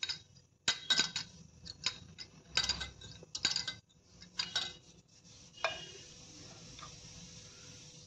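A steel spoon scraping and clinking in a stainless steel tea strainer, pressing ground liquorice root through the mesh to sift the powder from the fibre. It makes a run of short scrapes and taps, and about six seconds in it turns to a steadier rubbing hiss.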